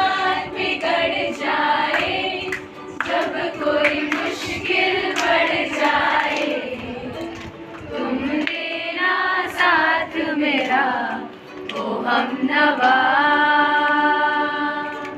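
Music with group singing, led by a female voice; one long held note near the end.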